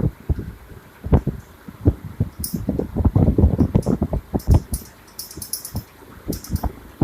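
Ceiling fan running, its airflow buffeting the microphone in uneven gusts, with irregular clicking and small clusters of high rattling ticks from the fan.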